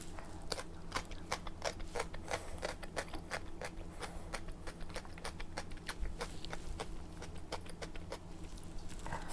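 Mouth eating sounds from chewing pickled radish (danmuji): many small crisp clicks and crunches, irregular, a few a second.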